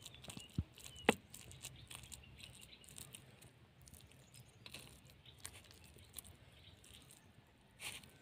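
A metal fork mashing the soft flesh of a baked potato: faint squishing with many small clicks, and two sharper taps about half a second and a second in.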